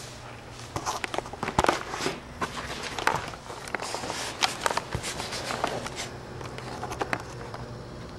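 Irregular scuffs, clicks and rustles of someone shifting about and handling the camera, over a steady low hum.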